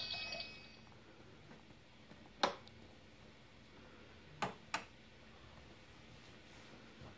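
Small plastic dollhouse pieces clicking and tapping as a child handles them: one sharp click about two and a half seconds in, then two close together a couple of seconds later. The tail of a louder sound dies away at the start.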